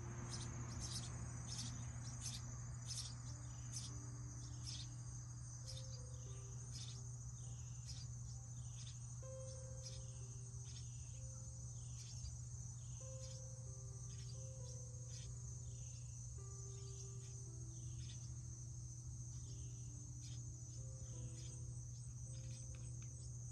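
Insects chirring steadily outdoors, with high falling chirps repeating about once or twice a second, over a low steady hum. Faint background music with slow, soft notes plays underneath.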